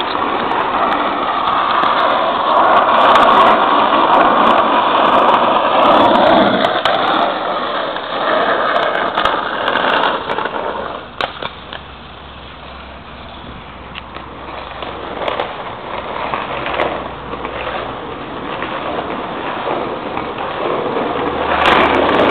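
Small wheels rolling fast down an asphalt road, a steady rolling noise that is louder for about the first ten seconds, then drops off and slowly builds again.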